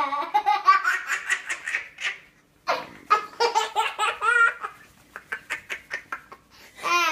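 Young child laughing hard in quick runs of high-pitched bursts, with a brief pause about two seconds in, then shorter laughs.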